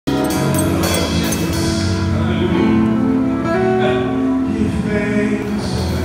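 Live gospel band playing, with singing over a drum kit and sustained pitched instruments; sharp cymbal hits in the first second or so.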